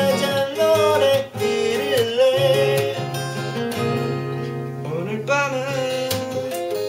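Four acoustic guitars played together, strummed and picked, with a voice singing a wavering melody over them.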